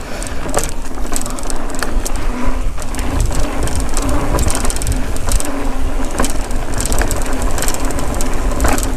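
Mountain bike rolling over a dirt singletrack: a steady rumble of tyres and wind on the microphone, with frequent clicks and rattles from the bike. A faint hum from the overhead high-voltage power lines comes and goes.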